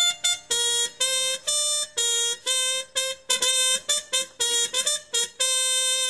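Trumpet playing a short tune of separately tongued notes, mostly repeating on one pitch, ending on a long held note.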